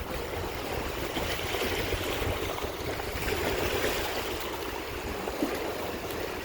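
Steady wash of wind and lake water at the shore, with wind rumbling on the microphone.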